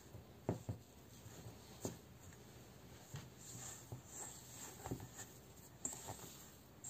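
Hands pressing and kneading crumbly cookie dough in a stainless steel bowl: faint rubbing and scraping, with a few light knocks against the bowl.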